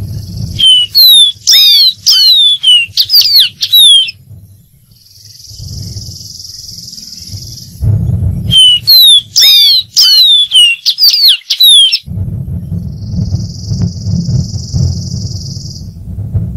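Dark-throated seedeater singing two loud phrases of rapid, downslurred whistled notes, each about three to four seconds long, with a pause between them. A steady high hiss fills the pauses, and a low background rumble comes in after the second phrase.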